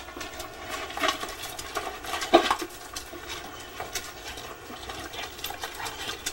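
A dog and another pet scuffling over a food bowl: scattered small clicks and rustles over a steady hiss, with one short animal cry about two seconds in.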